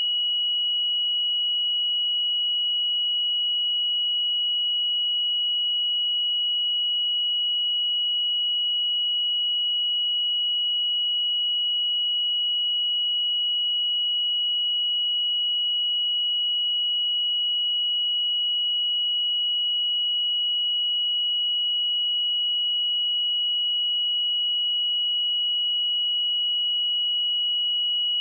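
Steady pure sine-wave test tone at 2917 Hz, a single unwavering high-pitched whistle with no other sound.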